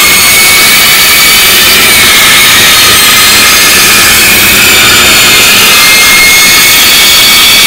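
Bandsaw running, its blade cutting through a white plastic panel: a loud, steady noise with a high whine throughout.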